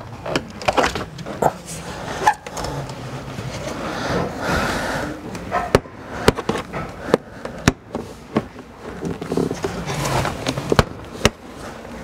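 Plastic door-pillar trim on a 2012 Subaru Outback being pried off with a screwdriver and by hand: irregular sharp clicks and snaps of the trim and its retaining clips, with scraping and rustling of plastic between them.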